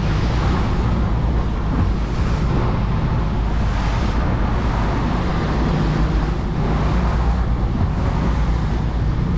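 Twin 150-horsepower outboard motors running steadily at trolling speed, a low hum under the rush of wind and churning wake water.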